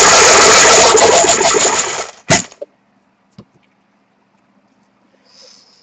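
Team slips shaken hard in a cup, a loud rapid rattle for about two seconds, ending in a single knock. A few faint clicks follow.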